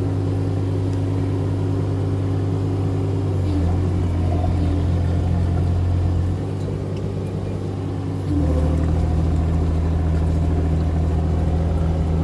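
Kubota mini excavator's diesel engine running as the machine is driven, its note stepping up and down a few times and dropping in level for a couple of seconds past the middle before rising again.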